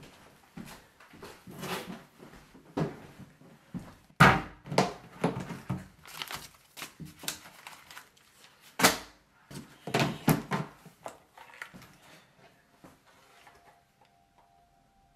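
Cardboard jigsaw puzzle boxes and a plastic bag being handled and packed into a plastic storage bin: irregular knocks, thuds and rustling, the loudest knocks about four and nine seconds in.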